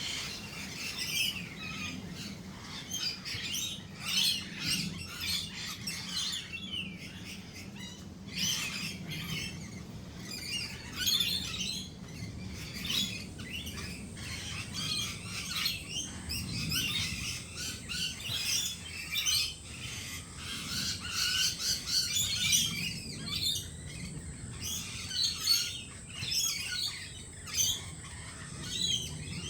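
Australian native birds chirping and twittering in a dense, continuous run of short high calls, with a faint steady high whine setting in about halfway.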